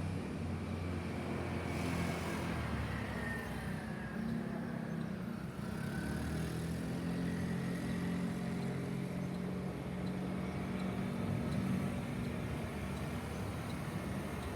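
City street ambience: road traffic with car engines humming steadily and the wash of passing vehicles.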